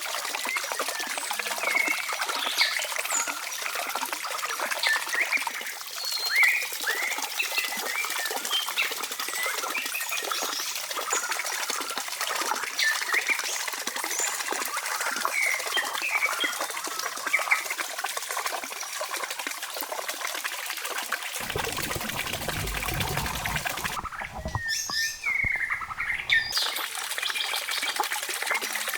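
Birds chirping and calling over a steady outdoor hiss. From about 21 to 26 seconds a deeper rumbling sound comes in underneath, then stops.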